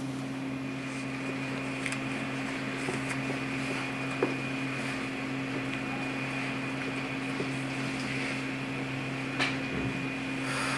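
Steady machine hum with a thin high whine over it, with a faint knock about four seconds in and a sharper click near the end.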